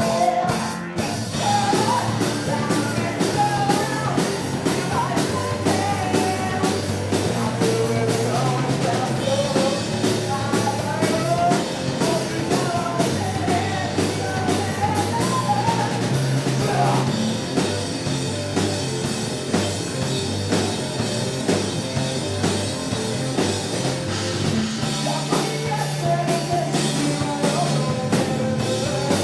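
Rock band playing live: drum kit, electric guitars and bass, with a lead singer's voice over much of it.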